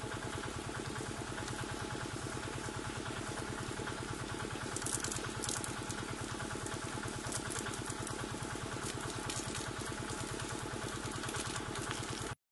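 Small engine running steadily at an even idle-like pace, with a fast regular pulse; it cuts off suddenly near the end.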